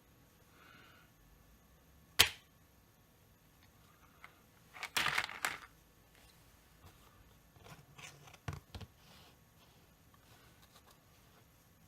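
Small chainsaw parts being handled: one sharp click about two seconds in, a short burst of clattering and rustling around five seconds, and a few light knocks near eight seconds.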